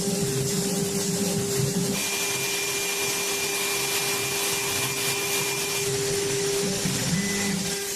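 PCB CNC milling router running: a steady spindle whine under a hissing, vacuum-like noise. A thin higher tone comes in about two seconds in and holds until nearly six seconds.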